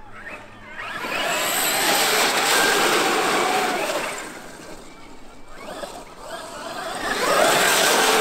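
Traxxas X-Maxx brushless electric RC monster truck driven through standing water, its motor whining over the hiss of spray. It makes two loud passes, one from about a second in to about four seconds, the other building near the end.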